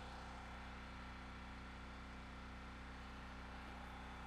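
Faint, steady low hum that does not change, with no other events.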